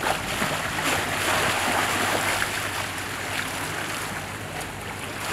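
Seawater rushing and splashing along a sailing catamaran's hulls as it moves through open-ocean swell, with some wind, over a steady low hum.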